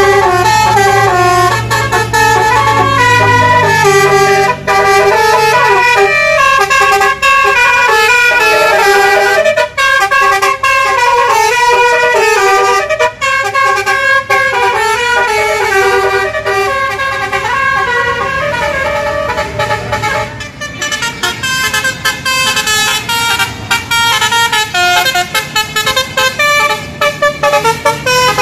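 Basuri telolet horns on a bus playing a fast tune in quick stepped notes, several sounding at once, with hardly a break. A bus engine is heard under it for the first few seconds, and from about two-thirds of the way in the tune comes in shorter, choppier bursts.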